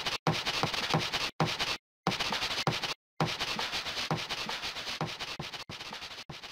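Chalkboard eraser scrubbing across a chalkboard in quick back-and-forth strokes. The strokes come in three runs with brief breaks between them, and the last run grows fainter.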